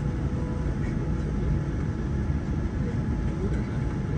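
Steady cabin noise inside a Boeing 787-9 airliner: a continuous low rumble with an even air hiss and a faint steady hum.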